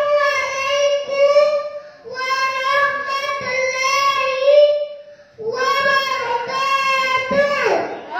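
A young girl singing in long, drawn-out phrases, three of them, with short breaths between; the last one ends in a falling slide.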